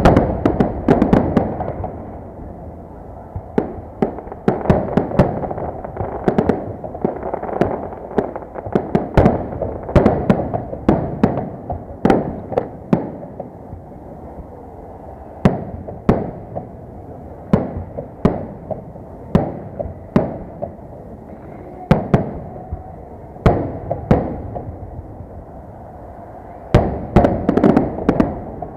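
Victory Day salute fireworks: aerial shells bursting in irregular volleys, sharp bangs often clustered several to a second with short lulls between, over a steady background hum.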